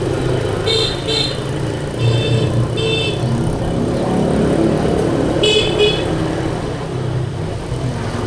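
Vehicle horns beeping in three quick pairs of short toots over a steady rumble of road traffic.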